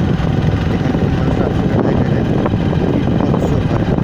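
Motorbike engine running at a steady cruising speed, mixed with road and wind noise.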